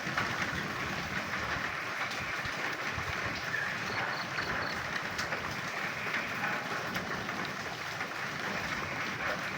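Frogs croaking in a dense, steady chorus while rain falls, with a few faint high-pitched short calls about four seconds in.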